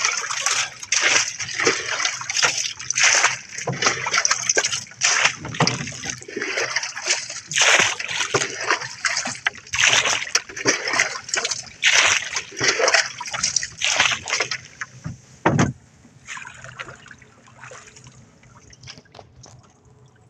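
Water splashing and slapping against the hull of a small outrigger boat in choppy water: quick irregular splashes about once a second that ease off about 15 seconds in.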